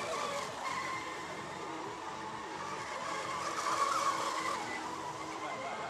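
Racing radio-controlled model boats' motors whining at high revs as they run laps on the water, several wavering high tones over a hiss of spray. The whine swells about four seconds in as a boat passes closer.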